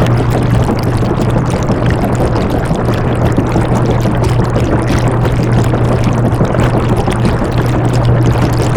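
Washing machine running: a steady low hum with a continuous rushing, churning noise over it, unchanging throughout.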